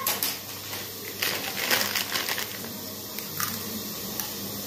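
A plastic snack packet crinkling and a crunchy snack being bitten and chewed: a dense run of crackly crunching about a second in, then a few scattered crunches.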